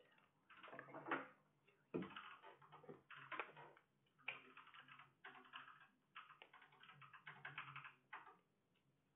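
Computer keyboard typing: quick runs of key clicks in irregular bursts with short pauses between.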